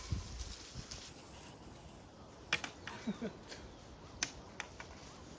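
Scattered sharp clicks and knocks from a passing flock of sheep, with a faint short bleat about three seconds in.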